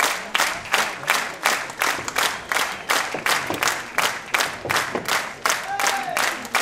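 Audience applause clapping in unison to a steady beat, about three claps a second.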